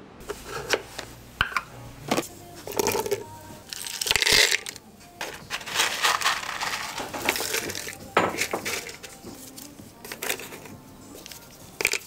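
Irregular clinking and clattering of dishes, glassware and utensils being handled, with busier stretches about four seconds in and again a little later.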